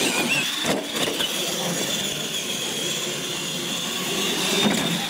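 R/C monster trucks accelerating away and running down the track, their electric motors and gearboxes whining steadily over tyre noise on concrete. The sound starts abruptly as the trucks launch.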